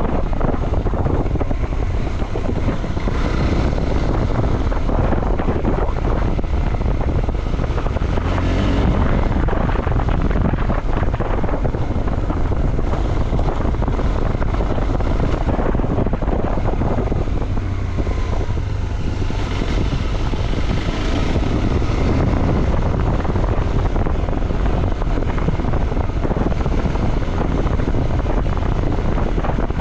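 Motorcycle riding along a trail, heard mostly as steady, heavy wind buffeting on the microphone over a low engine rumble.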